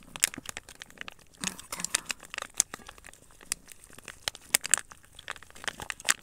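A wet cat-food pouch crinkles as several cats and kittens push their heads into it and eat straight out of it, with a dense run of irregular sharp clicks and smacks from lapping and chewing.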